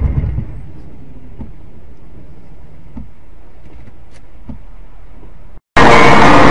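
Steady low vehicle and road noise with a few faint ticks, after a low thump at the very start. About five and a half seconds in, the sound cuts out abruptly, then loud music starts.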